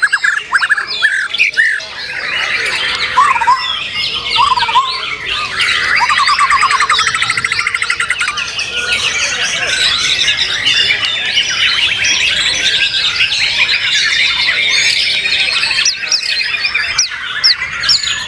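Several white-rumped shamas singing at once, a dense overlapping mix of fast trills, whistles and harsh scolding notes.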